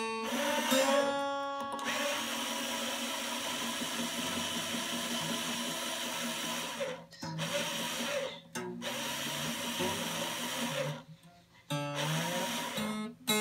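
Cordless drill with a string-winder bit whirring in several runs with short pauses, turning an acoustic guitar's tuning peg to tighten a steel string.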